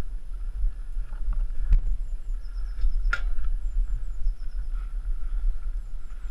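Pit bike being handled along an overgrown woodland path: unsteady low rumble and handling noise, with two sharp knocks, one under two seconds in and one about three seconds in. Faint high chirps sound now and then.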